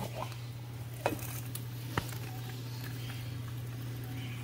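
Maestri House electric milk frother running its magnetic whisk with a quiet, steady low hum. Two sharp clicks about one and two seconds in, from the clear plastic lid being set on the stainless jug.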